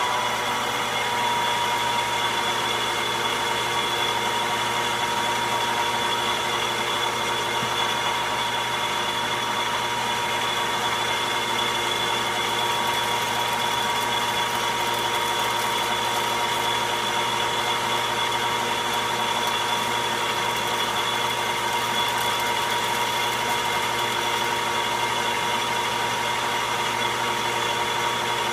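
Logan metal lathe running steadily, a motor and gear whine with several steady tones over an even machine noise.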